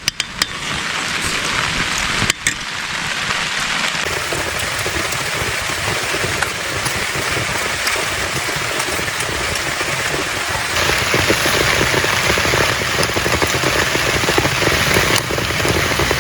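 Heavy rain falling steadily, with a few sharp clicks and a knock in the first few seconds. The rain gets suddenly louder about two-thirds of the way through.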